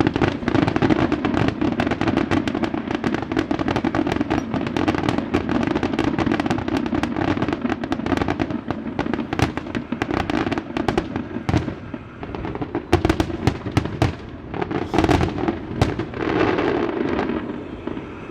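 Fireworks display: a dense run of rapid bangs and crackling, with a few louder single bangs in the second half, thinning out near the end.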